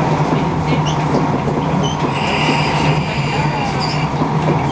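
Train in motion heard from inside the carriage: a steady rumble and hum of the running gear. A high, steady squeal, typical of wheels on the rails, joins about two seconds in and fades out a second and a half later.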